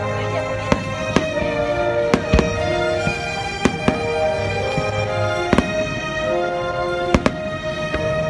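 Fireworks going off in irregular sharp bangs, about eight of them, over music with steady held notes.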